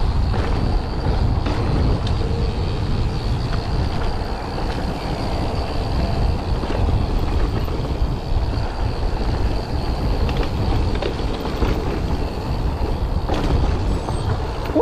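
Wind buffeting the microphone over mountain bike tyres rolling fast on a gravel and dirt trail, with small knocks and rattles from the bike over the bumps.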